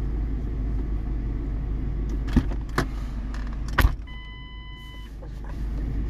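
Steady low rumble inside a car cabin. Three sharp clicks come in the middle, the last the loudest, followed by a single electronic beep of about one second.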